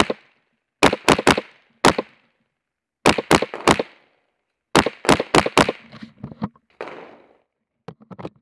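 Rifle gunfire in rapid strings of several shots, the shots a fraction of a second apart, each bang followed by a short echo off the walls of an indoor range. A few fainter cracks come near the end.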